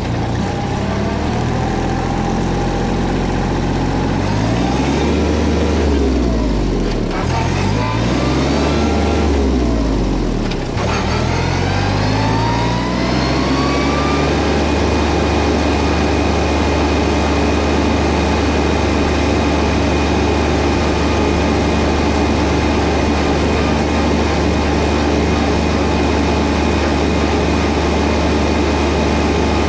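Kubota B2401 compact tractor's three-cylinder diesel engine revving up under way, its speed dropping back twice (about six and nine seconds in) at gear changes of the unsynchronized gear-drive transmission, then running steadily at road speed from about halfway.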